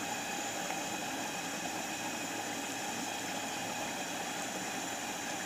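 Steady background hiss with a faint machine-like hum, unchanging throughout; the hands squeezing dough in water make no distinct sound of their own.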